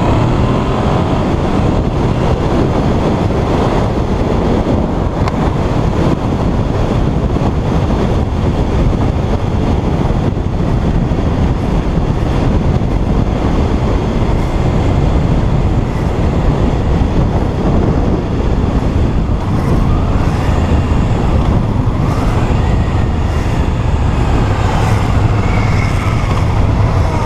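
Wind rushing over the helmet microphone, with the Suzuki SV650's V-twin engine and road noise underneath, while the motorcycle is being ridden.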